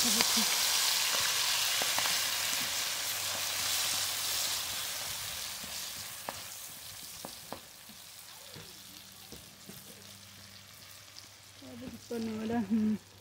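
Hot oil sizzling in a frying pan as chili paste and a spicy dried-shrimp mixture fry, stirred with a spoon, with a few light spoon taps. The sizzle grows gradually quieter.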